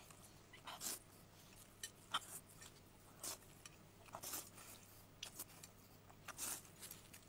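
Faint, intermittent slurping and chewing of a mouthful of noodles: short wet sucks every second or so.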